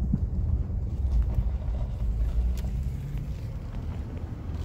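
Low, steady vehicle rumble heard from inside a car rolling slowly through a parking lot: engine and tyre noise.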